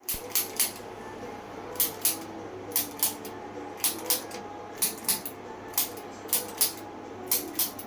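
Sharp clicks in quick twos and threes, about one group a second.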